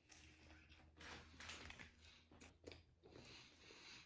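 Faint chewing of a mouthful of sub sandwich, with soft smacking and a few small wet mouth clicks a little past halfway.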